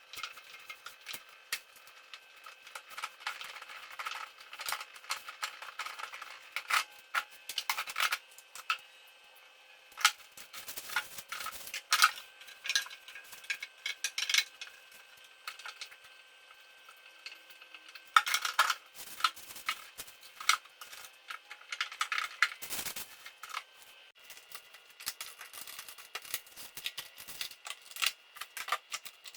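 Irregular clicks, taps and knocks of items being handled, set down and arranged in a refrigerator while it is tidied, in uneven clusters with short pauses between.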